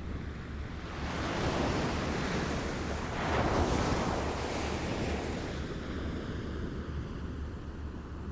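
Small waves lapping and washing on a shore: one wave swells in about a second in, breaks most loudly around three to four seconds in, then ebbs away, over a steady low rumble.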